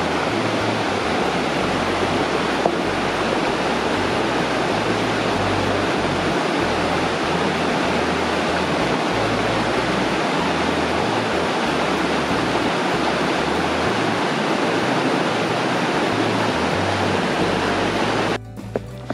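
Mountain river rushing over boulders: a steady, even rush of water that cuts off suddenly near the end.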